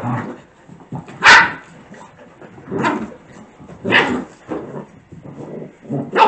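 Six-week-old puppies play-fighting, giving short yappy barks and yips about once a second.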